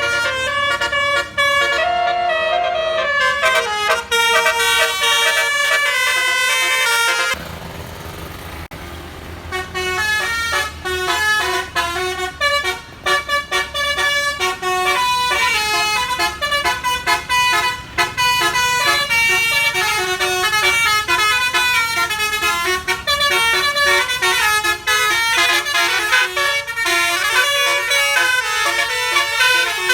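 Indonesian bus 'basuri' telolet musical air horns playing quick melodies of stepped notes, loud and nearly continuous. About seven seconds in the tune breaks for a couple of seconds, leaving a lower rumble of engine and road noise before the horns start again.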